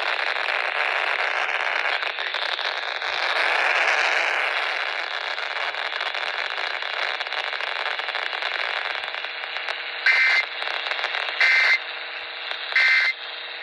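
Radio receiver hiss and static on an open channel, then three short warbling data bursts about a second and a half apart near the end: the EAS SAME header tones that open an alert message.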